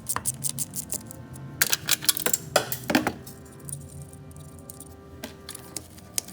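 Tools clicking and clinking against metal as a plastic cover's fasteners are unscrewed: a quick run of clicks at the start, then several louder knocks and clinks in the middle. Background music plays underneath.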